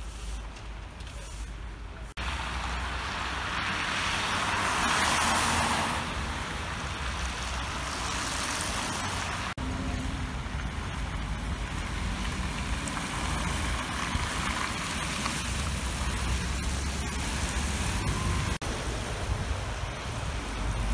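City street traffic: cars passing with a steady low rumble of tyres and engines, one swelling past loudly about two to six seconds in. The sound changes abruptly a few times.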